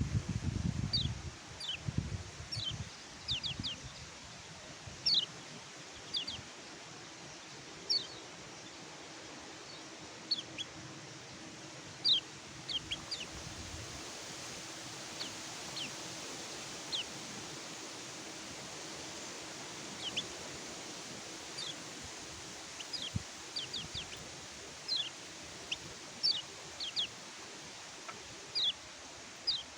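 Kecial kuning (a white-eye) calling with short, high, thin chirps that each slide quickly downward, given singly or in quick clusters of two or three every second or so. Low rumbling noise fills the first couple of seconds.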